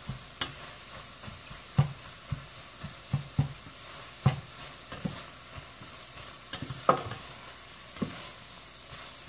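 Crumbled chicken sausage and vegetables sizzling in a hot metal pan while being stirred, with irregular scrapes and taps of the spatula against the pan; the loudest clatter comes about seven seconds in.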